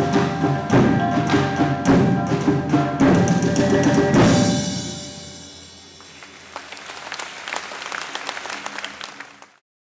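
Malaysian drum troupe beating large barrel drums with sticks in a fast, loud rhythm, with steady tuned tones ringing over the strokes. The piece ends on a last hit about four seconds in and dies away, then audience applause builds until the sound cuts off abruptly near the end.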